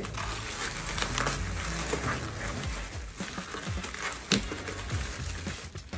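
Plastic bubble wrap crinkling and rustling as it is handled and pulled off a boxed item, with a sharp tap about four seconds in as the box is set down. Background music with a low bass line plays underneath.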